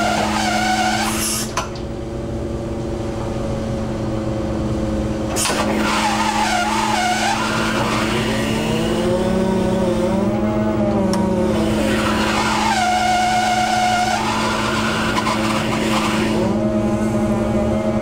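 Fishing boat's deck machinery and engine running with a steady drone, while the line hauler squeals in whines that rise and fall in pitch every few seconds as the line is hauled in through the block.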